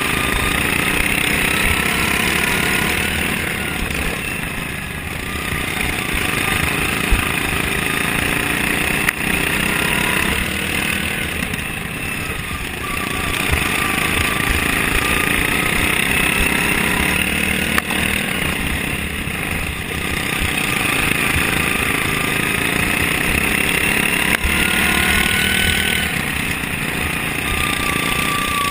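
Racing lawn mower's Briggs & Stratton Vanguard engine running hard under load, heard from on board. It eases off and picks up again three times, with a faint rising whine, and a few sharp knocks.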